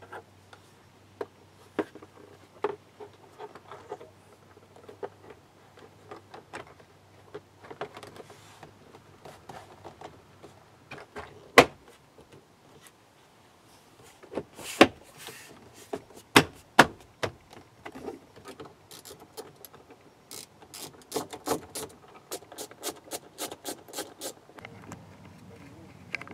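Hands handling and knocking on the plastic driver's door trim panel of a GMC Envoy. Scattered sharp clicks and knocks, the loudest a handful between about twelve and seventeen seconds in, then a quick run of light taps, about four a second, near the end.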